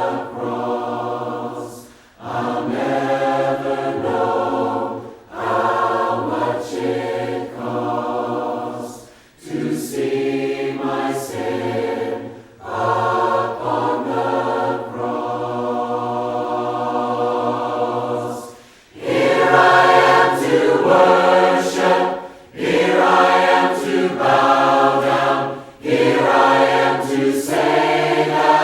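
Unaccompanied choir singing a hymn in harmony, in phrases a few seconds long with brief pauses between them.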